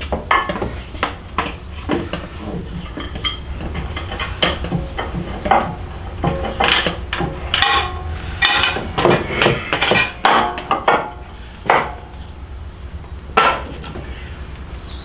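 Metal tools and hardware clinking and clanking in a string of irregular knocks, some ringing briefly, as bolts and parts are handled during the motorcycle crash bar fitting. The knocks come thickest in the middle, with a last clank near the end.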